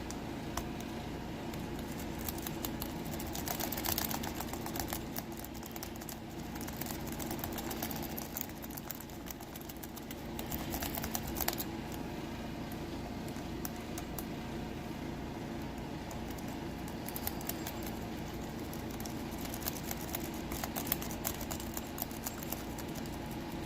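Snake rake being worked in a Best interchangeable-core lock: faint, irregular scratching and clicking of the pick against the pin stacks, over a steady background hum. The raking only sets the pins for opening, not for control.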